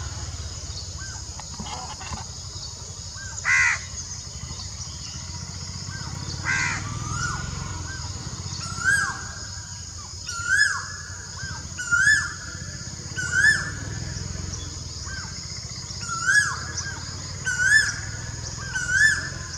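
Birds calling. Two loud harsh calls come a few seconds apart. Then a short note that rises and falls is repeated about every second and a half, over a steady high-pitched drone.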